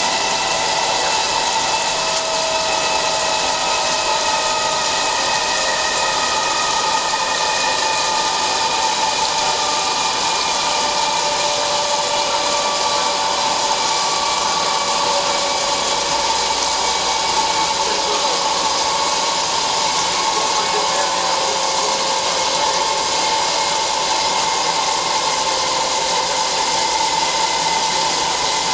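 DHL-1120x2000 CNC flat-bed lathe running and machining a part: a steady, loud machine noise with several whining tones that slowly drift in pitch.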